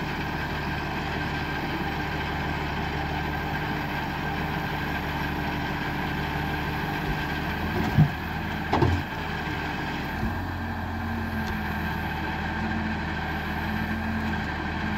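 Valtra 8350 tractor's diesel engine running steadily, driving the forestry crane's hydraulics as it unloads logs. Two loud knocks come a little under a second apart about eight seconds in, and the engine note shifts about two seconds later.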